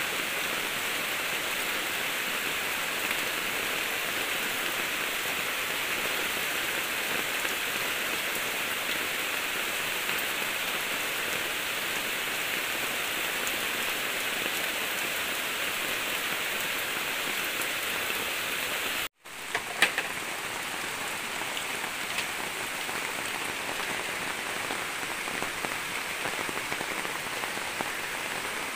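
Steady hiss of water, with no clear rhythm. About nineteen seconds in it cuts out for a moment and comes back with a single sharp knock.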